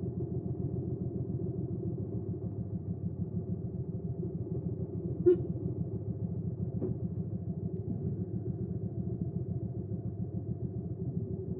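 Hyosung GV300S Supreme's V-twin engine idling steadily, with an even, lumpy run of firing pulses. A single short, sharp chirp cuts in about five seconds in.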